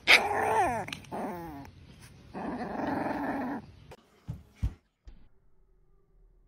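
A puppy growling in rough bursts, with high, falling whines just after the start. The growling stops about four seconds in, and two sharp knocks follow.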